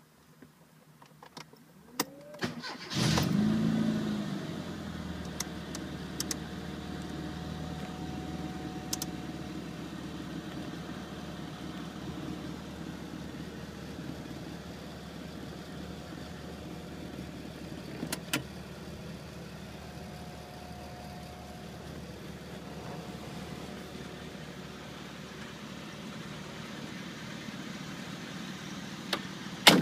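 Rover Mini Cooper's 1.3-litre A-series four-cylinder engine being started: a few clicks, then the engine catches about three seconds in, flares briefly, and settles to a steady idle. A sharp bang just before the end, as the car door shuts.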